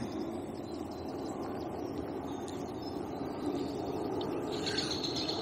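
Steady low outdoor background rumble with no distinct events; birds begin chirping near the end.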